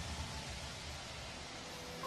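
Faint steady hiss in a lull between two pieces of background music, the first just faded out.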